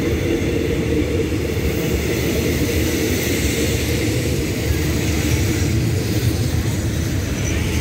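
Passenger carriages of an express train rolling past the platform as it pulls into the station: a steady low rumble of wheels on rail.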